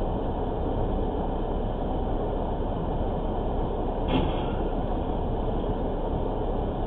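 Steady low noise of a stopped car idling, picked up by a dashcam microphone inside the cabin, with a brief faint thump about four seconds in.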